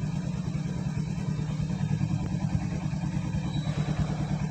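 Royal Enfield Hunter 350's single-cylinder engine running steadily with an even, rapid pulse.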